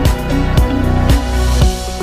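Background music: plucked-string and guitar-like instrumental with a steady beat, strokes about twice a second.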